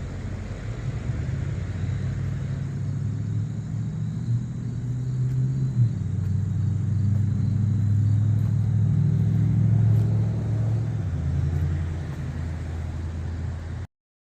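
A motor vehicle's engine running with a low rumble, its pitch dropping in steps about six and eleven seconds in, as with gear changes; the sound cuts off abruptly near the end.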